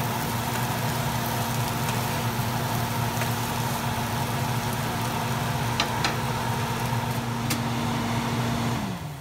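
Kitchen range hood fan humming steadily over the stove, with a few light taps of the wooden spatula against the pan. Near the end the fan is switched off and its hum drops in pitch as it winds down.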